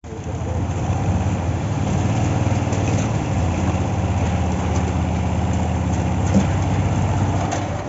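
Diesel engine of concrete-pouring machinery running steadily, with a low pulsing hum that eases slightly near the end.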